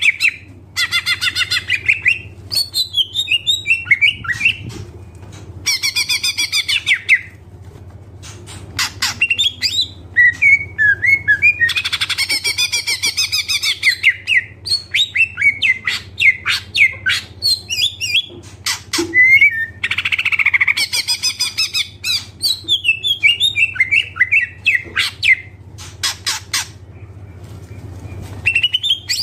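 Greater green leafbird (cucak ijo) singing hard: fast, varied trills, chatters and warbled phrases in bursts of one to three seconds with short pauses, a song full of mimicked phrases learned from other birds.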